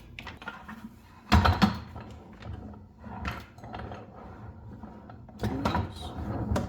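Hard plastic shop-vac parts being handled and set down: a loud clunk about a second and a half in, scattered lighter knocks, and another cluster of knocks near the end.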